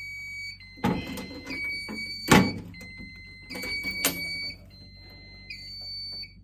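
A fire alarm system's electronic sounder giving a two-tone alert while the system runs with its main power cut, stepping between a lower and a higher pitch about once a second. Several sharp knocks and clunks of handling come in over it, the loudest a little past two seconds in.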